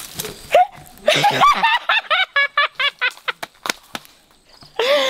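A man's high-pitched giggling, a rapid run of short 'hee' syllables, breaking off and starting again near the end, with a few sharp cracks in between.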